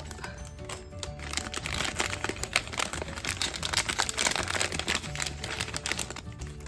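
Blind-bag packaging crinkling and rustling as hands open it, over soft background music.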